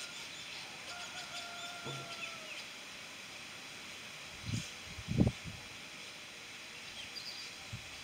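Weaver birds chattering in quick, high chirps for the first couple of seconds, with a long drawn-out call underneath that falls slightly at its end. About halfway through come two low thumps, the loudest sounds, and a last short chirp follows near the end.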